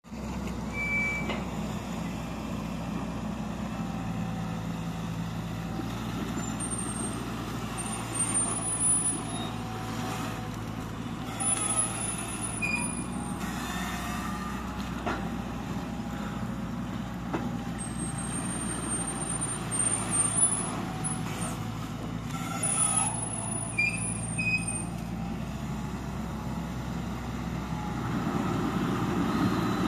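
Hitachi Zaxis 130 amphibious excavator's four-cylinder diesel engine running steadily while the machine digs, with short thin high-pitched squeals now and then. The engine gets louder near the end as it takes on more load.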